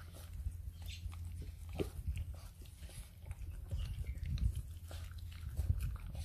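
Two English bulldog puppies eating wet meat-and-greens mush from a shared stainless steel bowl: rapid, irregular chewing and mouth smacks.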